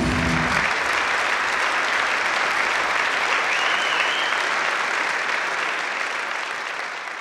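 Audience applauding steadily after the music stops just after the start, the clapping fading out near the end.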